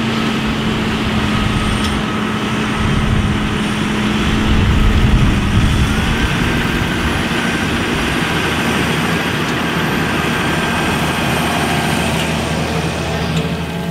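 A heavy engine running steadily and loudly, with a steady low hum under broad mechanical noise.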